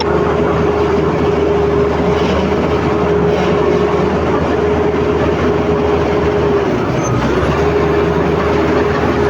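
Komatsu D85ESS crawler bulldozer working: diesel engine running under load with a steady high whine over a heavy rumble. The whine dips briefly about seven seconds in, then comes back.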